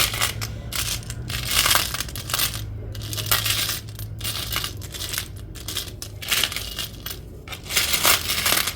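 Small metal charms clinking and rattling against each other as they are sifted and moved by hand, in irregular bursts with louder clatters near the start and near the end.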